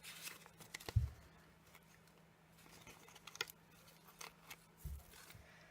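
Small handling sounds of paper pieces and foam tape on a craft desk: scattered light clicks and rustles, with a soft thump on the table about a second in and another near the end.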